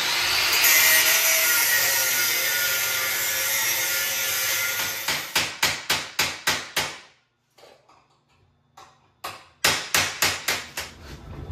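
Electric grinder cutting into a steel caliper bracket, a continuous hissing grind that stops about five seconds in. It is followed by two quick runs of short sharp hits, about five a second, with a short pause between them.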